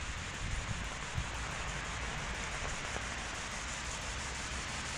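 Heavy rain falling on a paved street: a steady, even hiss with a low rumble beneath.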